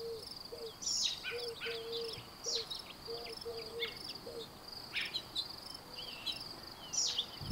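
Outdoor nature ambience: a steady high insect trill with birds calling in short, downward-sliding chirps throughout, and a low note repeated several times in the first half.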